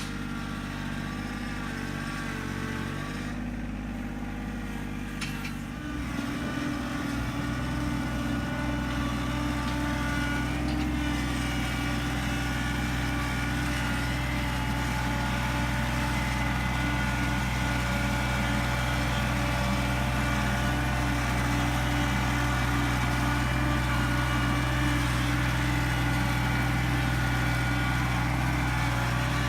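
An engine running steadily. About six seconds in it picks up to a higher, louder speed and holds there.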